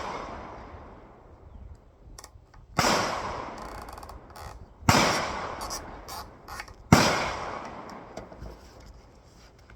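Three rifle shots about two seconds apart, each a sharp crack followed by a long echoing decay. The tail of an earlier shot is dying away at the start.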